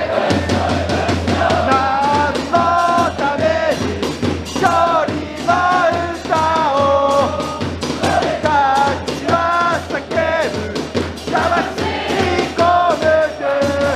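Football supporters' chant in the stands: drums beaten in a fast, steady rhythm under a crowd-backed melody of held, stepping notes.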